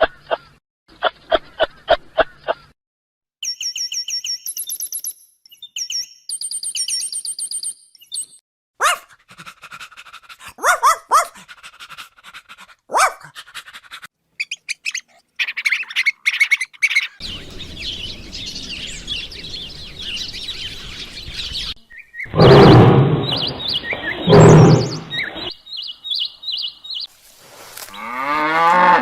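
A string of different animal calls, one short clip after another, including high bird chirps.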